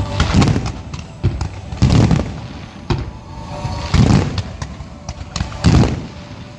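Aerial fireworks bursting: a string of deep, irregular booms, one every second or so, each trailing off in a short rumble.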